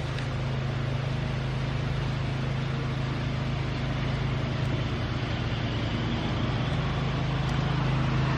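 A steady low mechanical hum, like a motor running, with an even noise above it.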